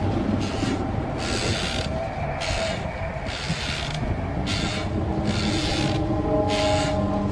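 Repeated rasping, grating strokes, roughly one a second, over a low rumble and steady droning tones: an eerie horror-style sound.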